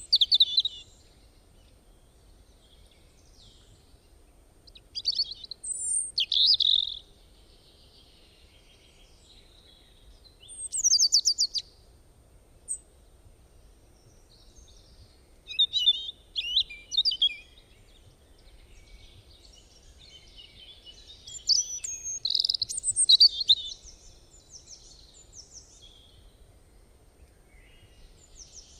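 Small birds chirping and trilling in short bursts every few seconds, with quiet gaps between them.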